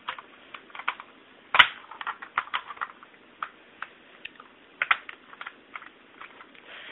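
Small hard plastic clicks and clatter of Lego pieces as a Lego model pistol is handled: an uneven run of light clicks, with two louder snaps, one about a second and a half in and one near five seconds.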